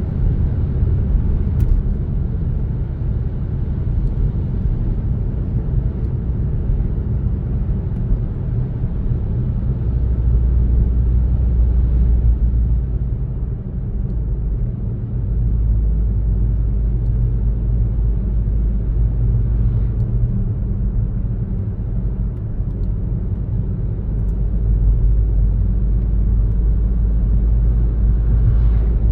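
Car driving along a road: a steady low rumble of engine and tyres, its level rising and falling a little.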